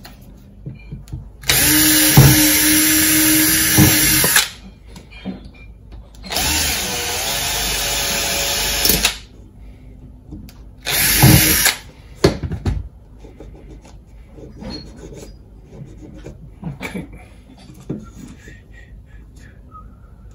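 Cordless drill boring into a 3-inch plastic pipe, run in three bursts: two of about three seconds each and a short one about eleven seconds in. Light clicks and handling noise follow.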